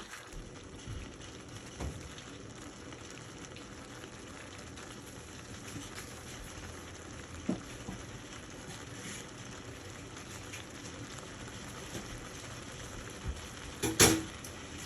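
Beef and vegetables stir-frying in a pan, sizzling and bubbling steadily. A few sharp knocks, the loudest near the end.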